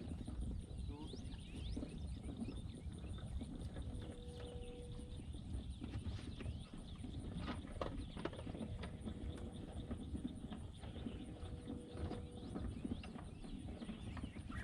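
Cattle shuffling about close by: a dense, irregular run of small knocks and clicks over a steady low rumble, with birds chirping faintly.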